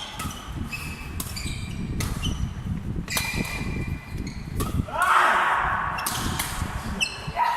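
Ball game on an indoor court: a string of sharp hits and thuds mixed with short high-pitched squeaks, with a burst of people's voices about five seconds in.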